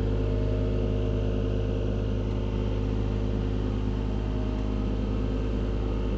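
Skid steer engine running steadily under way, an even low drone with a constant pitch.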